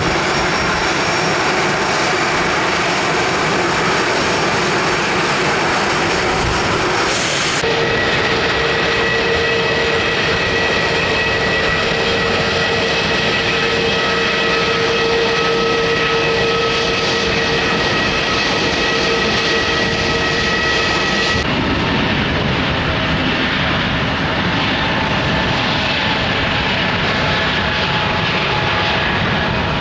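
Airliner engines running at close range, a loud steady noise; in the middle part several steady whining tones sit over it. The sound changes abruptly twice, about a quarter and about two-thirds of the way through.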